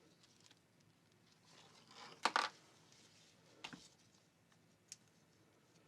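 Sharp plastic clicks from handling the strap's plastic clip and release tabs: a quick double click a little over two seconds in, a softer click about a second later, and a faint tick near the end.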